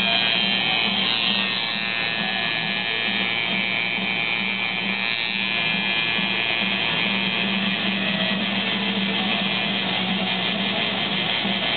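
Tattoo machine buzzing steadily as its needle works black ink into skin.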